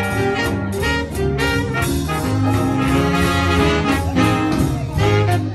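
Swing big band playing, with its horn section of trumpets, trombone and saxophones over a steady beat.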